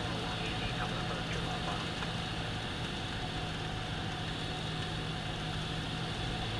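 Cabin sound of a Cessna 172M in flight: the four-cylinder Lycoming O-320 engine and propeller giving a steady drone, with airflow noise over it. It stays even throughout.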